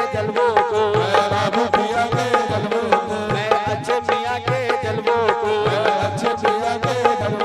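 Qawwali music without words: hand drums keep a steady, driving rhythm under a melodic line of sliding, wavering notes over a held drone.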